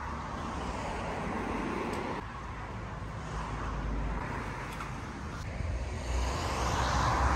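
Road traffic noise: a vehicle going by, louder near the end and then cutting off suddenly.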